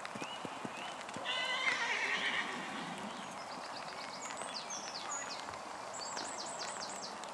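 A horse whinnying once, about a second in, followed by a run of short, high, falling chirps.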